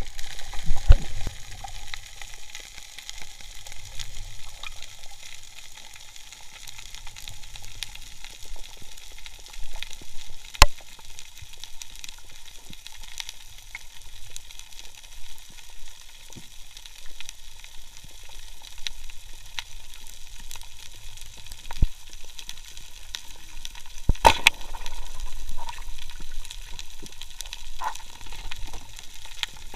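Steady underwater crackling and hiss, the ambient crackle of snapping shrimp on a tropical reef, broken by a few louder sharp clicks.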